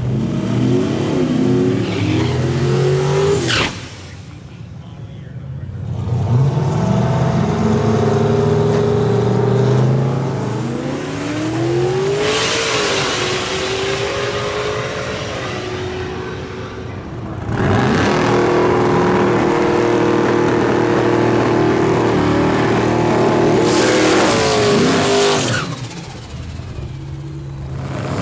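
Drag-race car engines revving and accelerating hard, their pitch climbing and dropping with each rev and gear change. The sound changes abruptly a few times, as several short clips are cut together.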